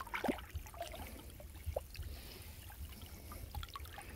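Water splashing and trickling as a man wades chest-deep in a muddy canal and lifts a gill net by hand, with a louder splash just after the start.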